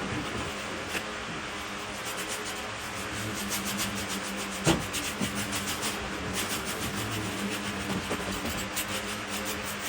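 Rake scraping over the ground and through dry leaves in quick repeated strokes, with one sharp knock about five seconds in and a steady low hum underneath.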